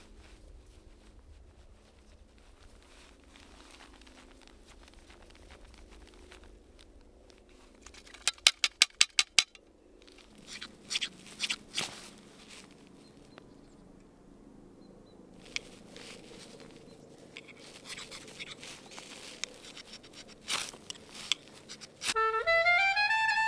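A knife scraped against a ferro rod in short strikes to throw sparks onto tinder, with a quick run of sharp clicks about eight seconds in and another cluster of scraping strokes later on. Near the end, jazz music with saxophone comes in loudly.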